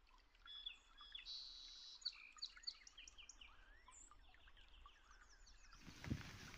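Faint birds chirping: many short, quick calls, some sweeping up and some down in pitch.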